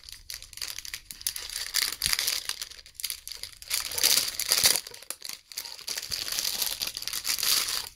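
Clear plastic packaging crinkling and tearing as it is pulled open by hand, loudest about four seconds in.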